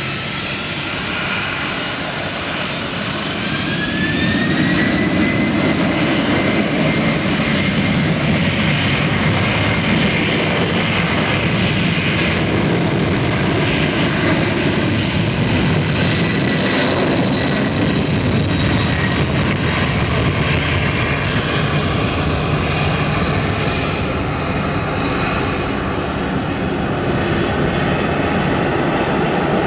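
Boeing 767-200ER's twin jet engines spooling up to takeoff thrust, a whine rising in pitch over the first few seconds, then a steady loud roar through the takeoff roll.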